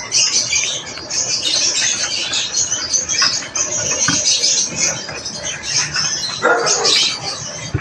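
Lovebirds chattering with shrill, continuous squawks and chirps, with a louder, lower-pitched outburst about six and a half seconds in.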